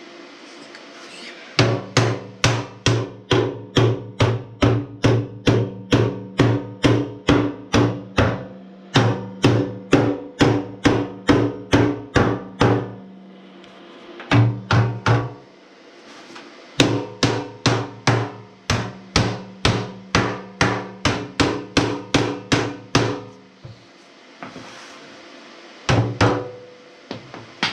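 Hand hammer striking the steel fuel tank of a David Brown 996 tractor, about three blows a second in long steady runs broken by short pauses, with two last blows near the end. The hollow tank rings like a drum after each blow as a welded-in repair panel is dressed in to fit.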